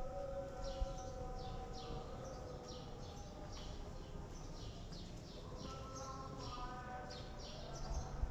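Birds chirping busily, in short falling chirps about two or three a second, over a sustained drone of several held tones that waver slowly in pitch.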